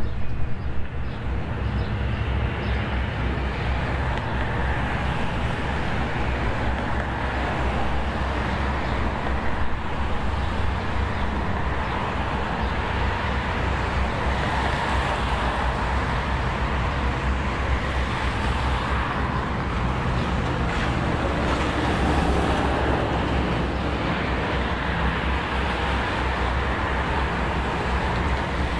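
Steady road traffic noise: a constant low engine hum with the hiss of cars passing now and then on a wet road.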